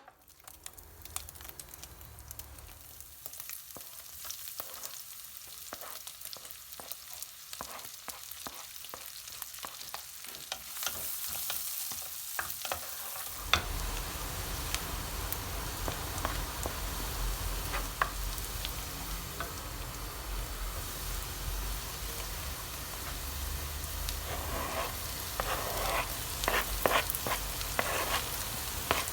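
Food sizzling as it fries in a hot pan, with scattered sharp clicks. The sizzle grows louder and fuller about halfway through, and the clicks come more thickly near the end.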